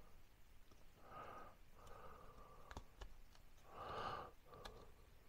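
Near silence: a person breathing out heavily a few times, with a few faint clicks from plastic shelf feet being handled and pushed onto a shelving upright.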